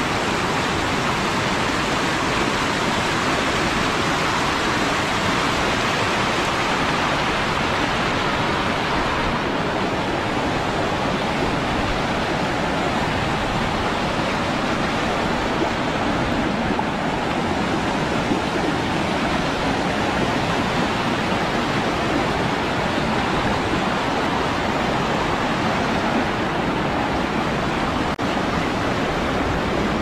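Stream water rushing, a loud, steady, even rush.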